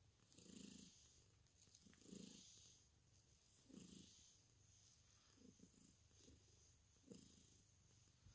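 Ragdoll cat purring faintly while being stroked, the purr swelling about every one and a half seconds.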